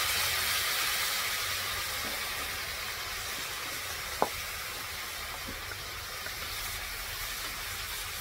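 Water sizzling and hissing in a hot frying pan of vegetables, slowly dying down as it steams. One sharp click about four seconds in, and a fainter one about a second later.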